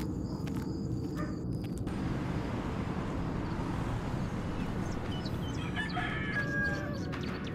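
A rooster crowing once, about six seconds in, over a steady low ambient rumble.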